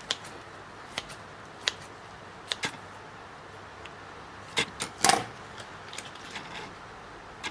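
Scattered sharp clicks and light knocks of kitchen utensils and dishes being handled, about a dozen in all, with the loudest cluster about five seconds in.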